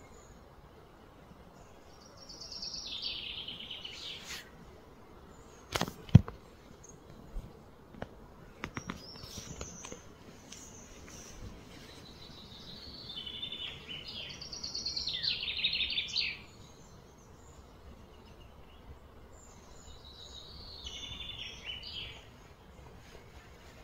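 Outdoor ambience with a bird singing several short, high, trilling phrases that fall in pitch. A single sharp click about six seconds in is the loudest sound, with a few fainter clicks after it.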